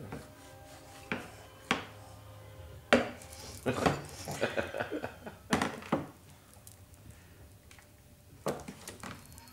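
A bowl knocking and clattering on a plastic high-chair tray: a string of separate sharp knocks, with a busy cluster about four seconds in and a pair near the end.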